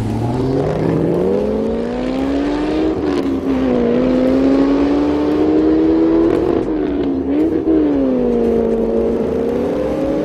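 V8 engine of a Holden VE Commodore through a VAREX exhaust, revving up sharply from low revs, then running hard with its pitch rising and falling several times as the throttle is opened and eased off.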